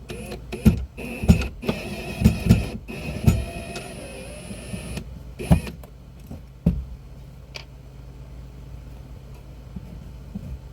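Cordless drill-driver whirring for a few seconds, mixed with a series of sharp knocks and clunks; after that only a low steady hum remains.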